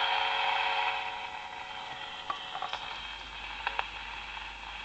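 Steady hiss of random noise from a germanium-diode noise generator with two transistor amplifier stages, played through a small speaker and strongest around 2–4 kHz. It drops in level about a second in as the volume is turned down, and a few small clicks come near the middle.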